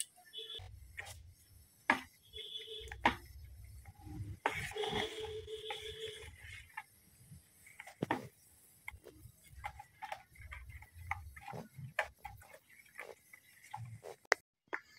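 Steel spoon stirring thick semolina batter in a steel plate, giving irregular light clicks and scrapes against the metal, with soft handling noise.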